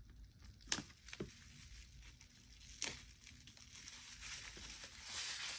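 Scissors snipping the ties that hold a handbag's strap: three faint sharp clicks, the last about three seconds in, then crinkling of the strap's plastic wrapping near the end.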